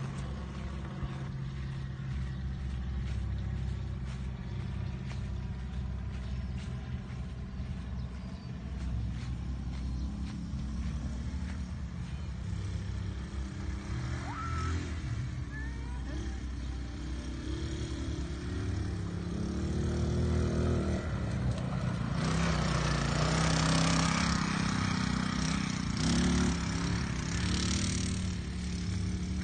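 Dune buggy engine running as the buggy drives around a dirt field. It grows louder and rougher about three quarters of the way through as it comes nearer, with a rushing noise of tyres churning dirt.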